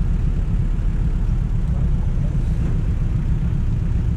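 Steady low rumble of a road vehicle on the move, with traffic and wind noise.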